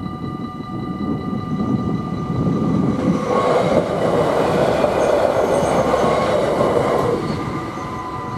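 Arriva regional train passing over a level crossing: its rumble and wheel-on-rail noise swell about three seconds in and fade after about seven, over the steady ringing of the crossing's warning bells.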